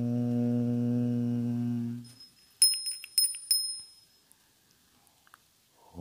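Electric hand drill running steadily while boring a hole through a wooden board, then stopping about two seconds in. A few sharp ringing clicks follow, then near silence, and the drill starts again near the end, its pitch rising as it spins up.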